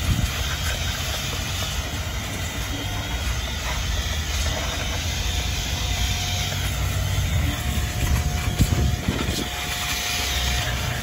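Small handheld electric blower running steadily, a rushing stream of air blowing dirt out of the engine bay. A faint steady whine joins about halfway through.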